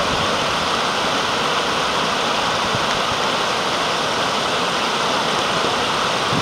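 Shallow river rapids running over rocks and boulders: a steady, even rush of water.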